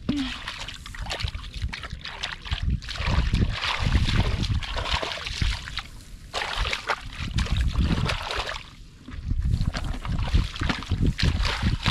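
Shallow water in a flooded rice field splashing and sloshing in irregular bursts as someone grabs through it by hand, with a short lull about nine seconds in.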